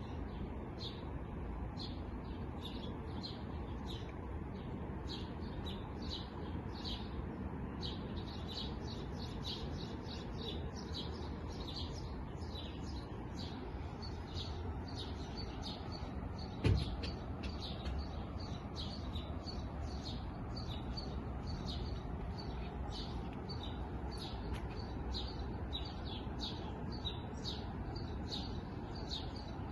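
Small birds chirping busily, many short chirps a second overlapping, over a steady low rumble. One sharp thump a little past halfway.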